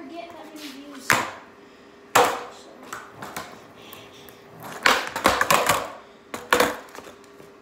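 Skateboard deck and wheels clacking and slapping on a concrete floor: a series of sharp knocks, with a quick flurry of them about five seconds in, as kickflips are tried.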